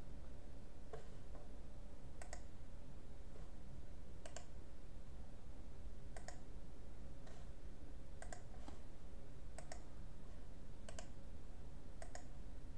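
Computer mouse button clicking: about a dozen short, sharp clicks at irregular gaps of roughly a second, over a steady low hum.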